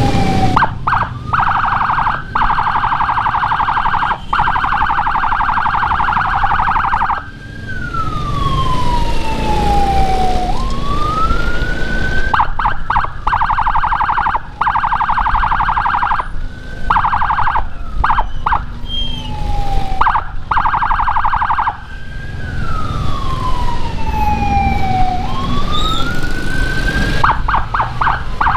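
Electronic siren (Whelen HHS Lite module through a Senken horn speaker) cycling through its tones: a fast, choppy high-low warble for several seconds, then a slow wail that sweeps down in pitch and back up, before the warble returns, repeating over and over. Engine and road noise run steadily underneath.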